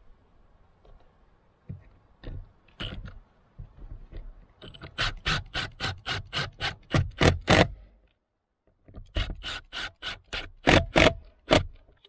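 Cordless impact driver driving a screw into a wooden post to fasten a mounting pipe, hammering in two runs of rapid, evenly spaced strikes, the first starting about five seconds in and the second about nine seconds in, with a few light knocks before them.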